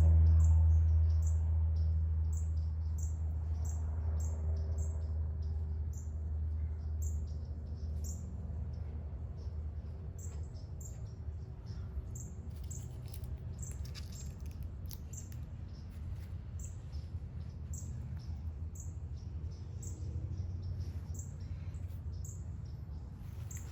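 Short high chirps repeating about once a second over a low rumble that fades during the first few seconds, with a few scattered clicks in the middle.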